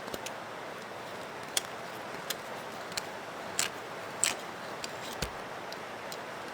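Reaming tool run around the inside of a cut thick-wall 3/4-inch copper pipe end to take off the burrs: about seven short, scattered clicks over a faint steady hiss.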